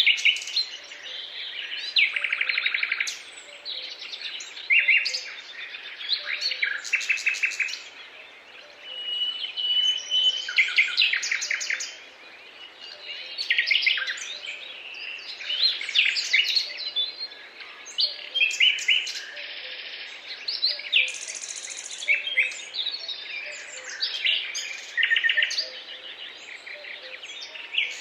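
Several songbirds singing and calling at once: a dense chorus of overlapping chirps, whistles and rapid trills.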